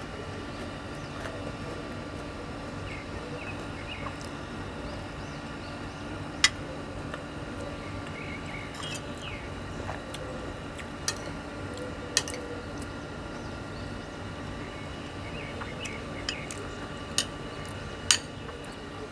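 Eating fresh oysters: a handful of short sharp clinks of utensils or shells, spread out, over a steady background hum.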